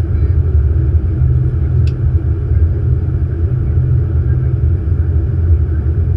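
Steady low rumble of airflow and engine noise in an Airbus A380 flight deck on approach.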